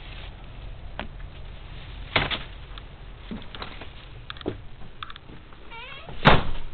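Knocks and footsteps of someone stepping up into a camper trailer through its door, with a short wavering squeak and a sharp bang, the loudest sound, near the end.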